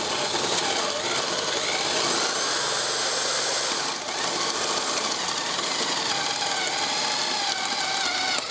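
Electric drill boring a 1-inch hole with a spade bit into glued-up plywood, the motor running steadily with its pitch sagging and recovering under load, and a brief let-up about four seconds in.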